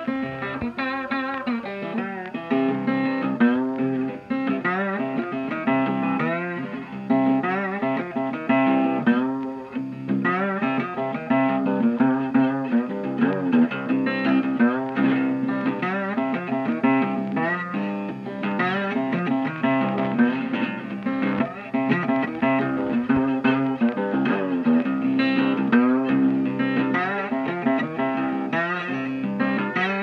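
Background guitar music: plucked and strummed guitar with many bent notes over a held low note.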